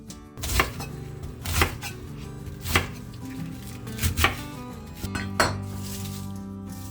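Kitchen knife chopping on a cutting board in single, spaced strokes about once a second, with a quick double stroke about four seconds in, over soft background music.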